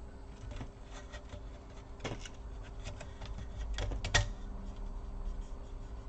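A laptop's plastic cover being handled and fitted back into place: scattered light clicks and taps, with a short cluster of louder knocks a little after four seconds in.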